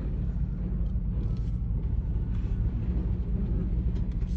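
Off-road vehicle driving on a dirt trail: a steady low rumble of engine and tyres.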